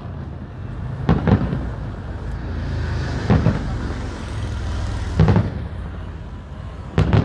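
Fireworks going off: four sharp booms about two seconds apart, over a steady low rumble.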